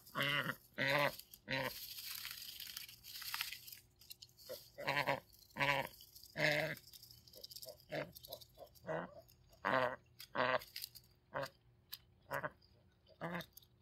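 Domestic ducks quacking in short, repeated calls, about one a second, with a rustle of crinkly plastic Easter grass between calls as a duck pokes its bill into the treat basket.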